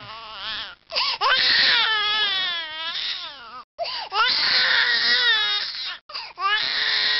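An infant crying loudly: long wavering wails, three bouts separated by short breaks for breath.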